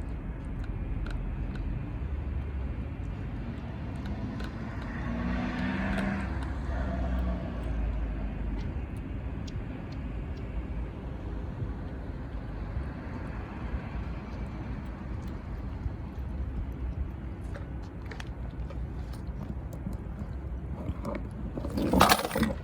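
Steady low traffic rumble with faint scattered clicks of a stray cat eating canned tuna; near the end something drops with a sudden loud clatter.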